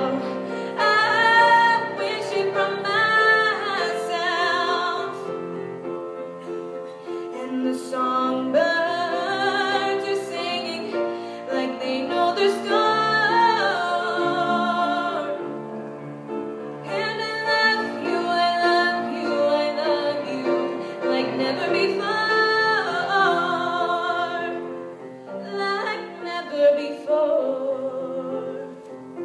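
A female voice singing a slow melody with piano accompaniment, holding long notes with vibrato.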